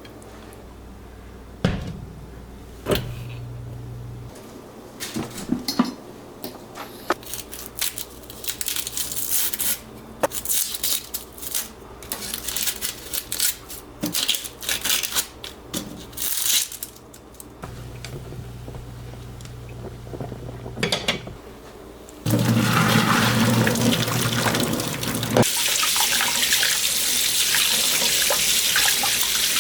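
Water at a sink: intermittent splashing and knocks, then a tap opened fully about 22 seconds in, running steadily.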